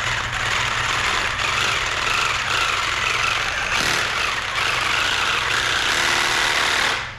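Reciprocating saw running with a paint-shaker attachment, shaking a can of paint hard, then cutting off near the end.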